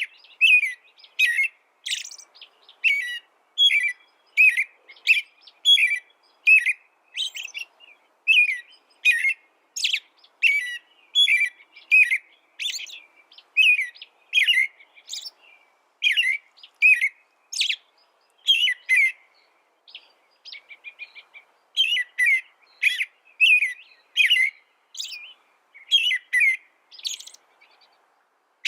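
A songbird singing: short, sharp chirping notes repeated about twice a second, with a brief run of softer, quicker notes about two-thirds of the way through.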